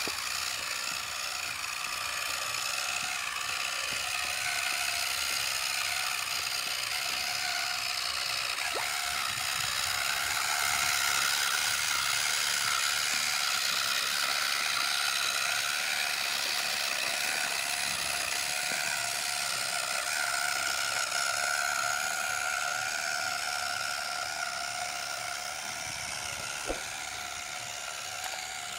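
Electric gear motor of a homemade model tractor whining steadily as it drags a small disc harrow through sand, with two faint clicks, one about nine seconds in and one near the end.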